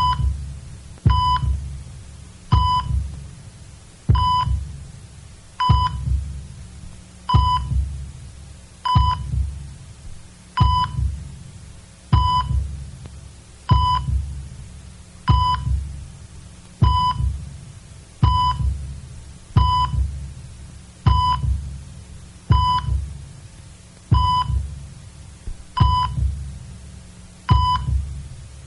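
Heart-monitor beeping, a short high beep about once every second and a half, each with a low thud under it that fades before the next.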